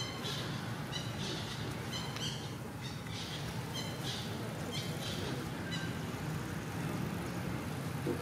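Newborn baby monkey squealing in distress while a young monkey pins and handles it roughly. The short, high-pitched cries come about once a second and trail off around six seconds in.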